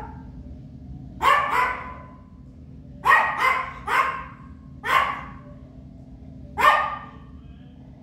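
Papillon dog barking in short, sharp barks, about seven in all: two close together, then three in quick succession, then two single barks, over a steady low hum.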